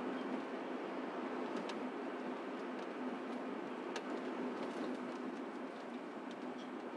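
Steady road and tyre noise of a car driving through city streets, heard from inside the cabin, with a faint steady hum underneath and a few faint ticks.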